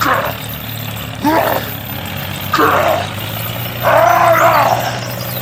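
A small motor drones steadily. Over it come four short pitched shouts or calls about a second and a quarter apart; the last one is the longest and loudest.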